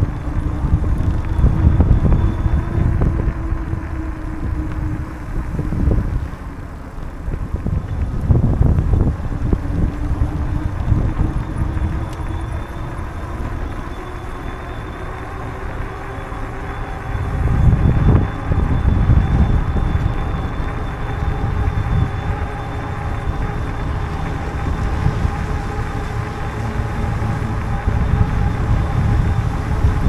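Wind buffeting the microphone of a camera on a moving bicycle, a low rumble that swells in gusts, strongest about two seconds in and again a little past halfway. Under it runs a faint steady hum that drifts slowly in pitch.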